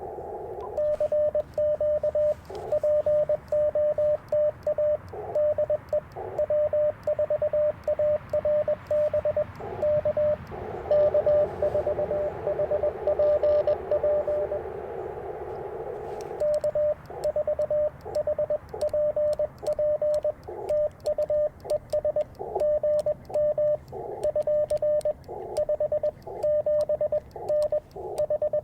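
Morse code sidetone from an Icom IC-705, a single steady tone keyed in dots and dashes as CW is sent on a Bamatech TP-III twin-paddle key, with the paddle's light clicks heard along with it. From about ten to sixteen seconds in the keying stops and the receiver's band hiss through the narrow CW filter fills the gap, then sending starts again.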